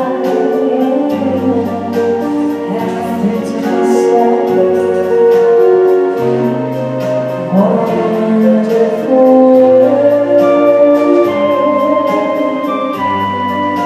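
A woman singing a slow ballad into a microphone, her voice coming in phrases, over electric guitar with a stepping bass line, held chords and a steady light hi-hat tick about twice a second.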